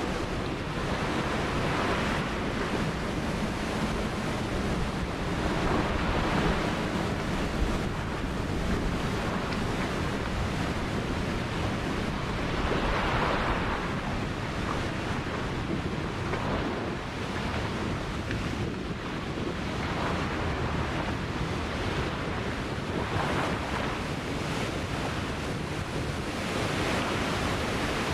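Ocean surf: a continuous wash of waves, swelling each time a wave breaks, about every four to ten seconds.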